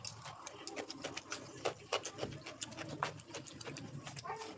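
Eating sounds: chewing and lip smacking over rice and paneer masala, a stream of small irregular clicks.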